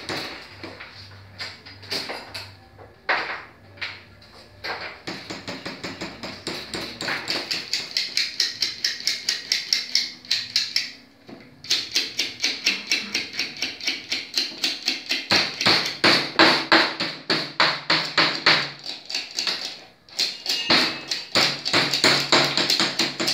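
Small hammer tapping steel laminations into a transformer core, with rapid light strikes several times a second and a couple of short pauses.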